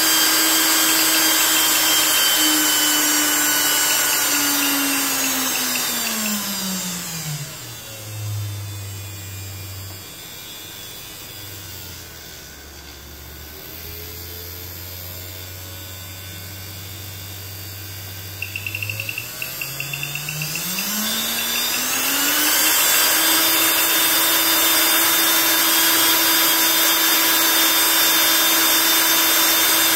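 Small brushed DC motor running from a bench power supply, its whine falling in pitch and loudness as the voltage is turned down from about 15 V to about 4 V, running slow and quiet for several seconds, then rising back to full speed as the voltage is turned up again.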